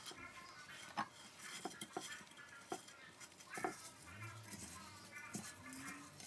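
Light taps and clicks of a gloved hand pressing a chicken roll into ground corn-chip crumbs in a glass baking dish. The sound is faint, with a handful of sharp ticks scattered through the first few seconds.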